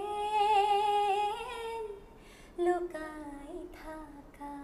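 A woman singing an Assamese song unaccompanied. She holds one long note for about two seconds, breaks off briefly, then starts a lower phrase that steps downward.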